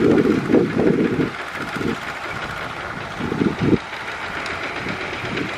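Kubota single-cylinder diesel walking tractor running under load as it plows. Heavy low rumbling bursts come through in the first second or so and again a little past three seconds in.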